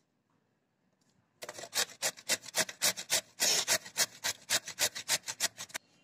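Peeled raw carrot grated on the fine holes of a stainless steel box grater: quick rasping strokes, about five a second, starting about a second and a half in and stopping just before the end.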